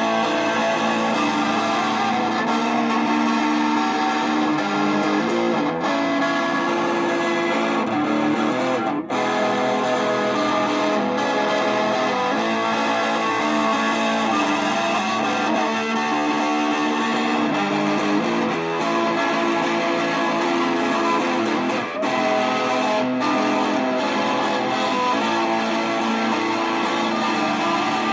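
Instrumental music led by electric guitar played through effects, running continuously at a steady level.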